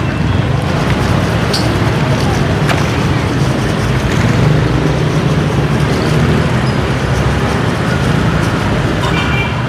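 Steady road-traffic noise from a busy street, a continuous engine and tyre rumble.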